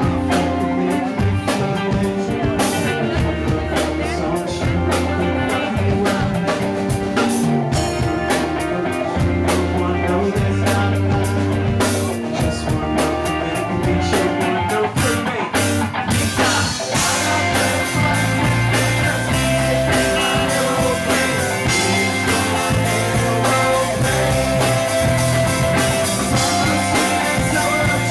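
Live rock band playing: guitars and drums, with busy drum hits through the first half and longer held notes coming forward after about the middle.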